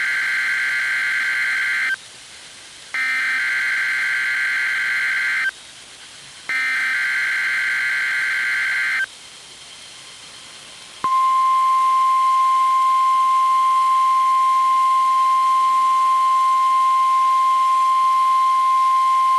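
Emergency Alert System SAME header on NOAA Weather Radio: three bursts of screeching digital data, each about two and a half seconds long with about a second between them. About 11 seconds in comes the steady 1050 Hz weather-radio warning alarm tone, opening a practice test warning.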